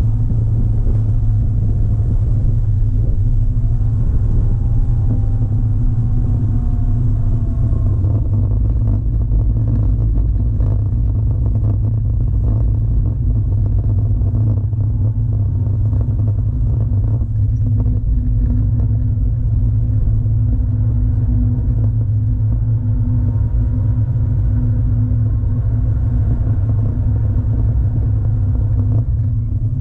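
Air-cooled flat-six of a classic Porsche 911 running under way, heard from inside the cabin as a steady, loud low drone mixed with road noise.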